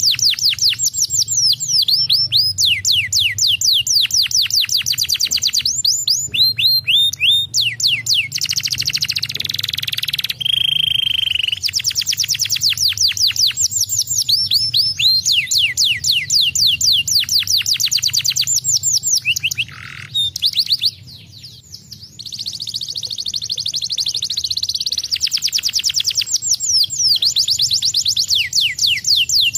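Domestic canary singing: long runs of rapid, repeated high falling chirps, broken about nine seconds in by a rolling, buzzy passage and a held whistle, and by a short lull about twenty seconds in before the chirping runs resume.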